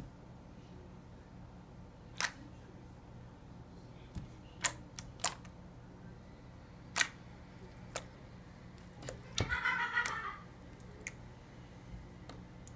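Camera shutter clicks, about seven or eight single sharp clicks spaced irregularly a second or two apart, as someone stops again and again to snap pictures. A short pitched sound comes about ten seconds in.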